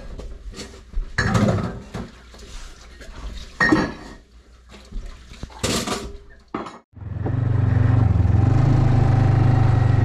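Dishes, pots and cutlery clinking and clattering at a kitchen sink as they are washed and dried by hand. About seven seconds in this gives way suddenly to a snowmobile engine running steadily.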